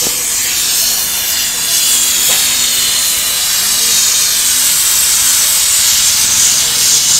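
Gas brazing torch flame hissing steadily while heating a wire nozzle to braze in its carbide tip.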